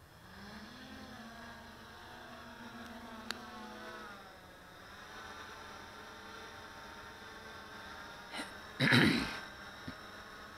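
Electric motors and propellers of a multirotor RC Millennium Falcon model whirring. The pitch rises as they spin up for lift-off, then holds a steady hum in flight. A brief loud burst comes about nine seconds in.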